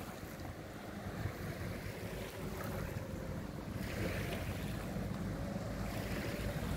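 Wind rumbling on the microphone over lapping river water, with a faint steady hum from an approaching car-carrying cable ferry.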